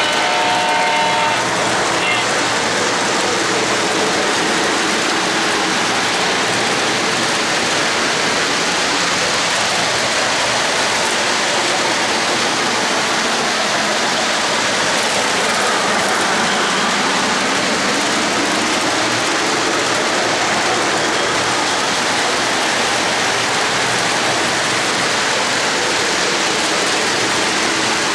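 O-gauge model trains rolling on three-rail track: a steady metallic rushing rumble of many small wheels on the rails.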